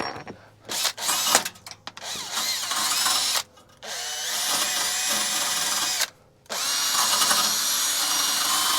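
Handheld power drill running in a few short bursts, then in longer steady runs, its motor pitch rising each time it spins up, with a brief stop about six seconds in.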